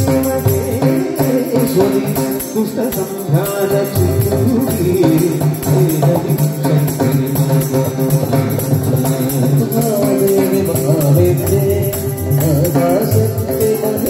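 Male voice singing a Malayalam devotional chant of the goddess's names into a microphone, with tabla and harmonium accompaniment.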